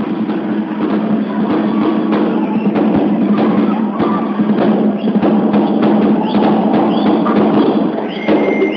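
Live band playing, with a drum kit and cymbals hitting prominently over a full, steady band sound.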